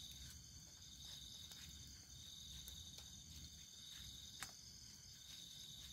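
Faint night chorus of crickets trilling steadily and high-pitched, with a few soft clicks and one sharper tick about four and a half seconds in.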